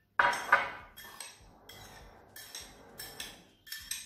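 Metal spoon clinking against a small ceramic bowl while scooping and stirring a soy-sauce, lime and sugar dressing: two sharp clinks close together at the start, then a run of lighter clinks.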